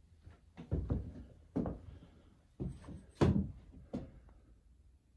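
A series of dull thumps and knocks, five or six of them a little under a second apart, the loudest a little past three seconds in.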